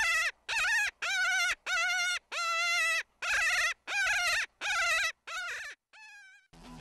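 Coyote predator call: a high, wavering distress cry repeated about every two thirds of a second, about ten times, the last one fainter. Guitar music comes in near the end.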